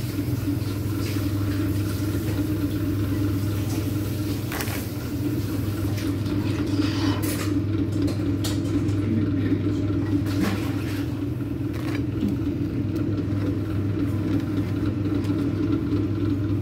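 A steady low machine hum, with a few short knocks and clinks of a metal strainer against the pot as crabs are lifted out.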